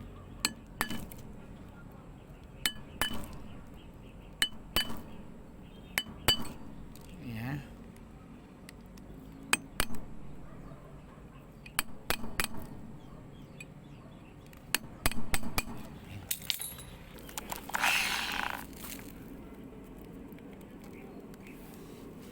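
Metal parts and tools clinking and knocking together as they are handled, with sharp clinks at irregular intervals and a brief scraping rasp near the end.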